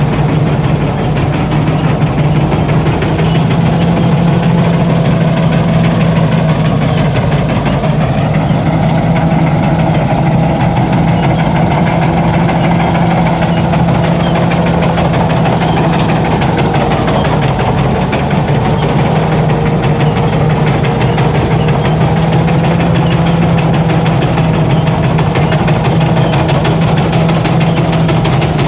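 Combine harvester running steadily: its engine and machinery make a continuous loud drone, with a few tones that slowly waver in pitch.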